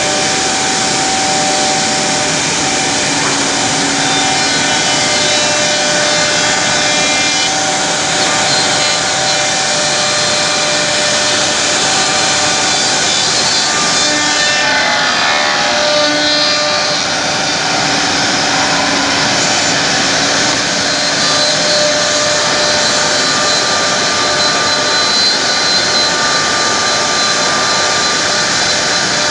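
Woodmaster WM-5×2CNC ten-spindle CNC mortising machine running, its high-speed spindles whining steadily as the router bits cut into wood. The pitch of the whine shifts briefly about halfway through.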